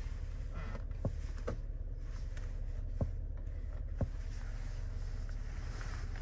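Steady low rumble inside the cabin of a running SUV, with four light clicks of a fingertip tapping the infotainment touchscreen.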